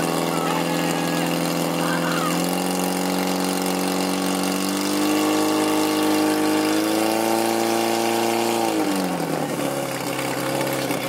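Portable fire pump engine running hard under load, pumping water to two hoses. It steps up in speed twice, then winds down to a lower idle about nine seconds in, just as the last target is knocked down.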